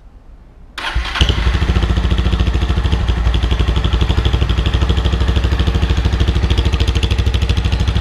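Honda CG 160 Fan's single-cylinder four-stroke engine cranking briefly about a second in, catching and settling into a loud, steady idle with a fast, even pulse. It runs through an aftermarket G-Moto 'estralado' (loud free-flow) exhaust.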